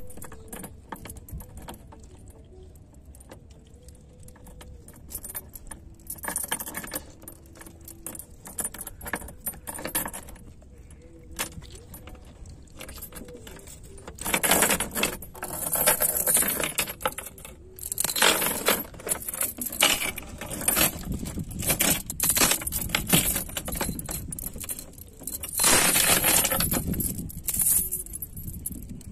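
Steel chain links clinking and rattling as they are handled and fastened to a plucked chicken, in repeated bursts that mostly come in the second half.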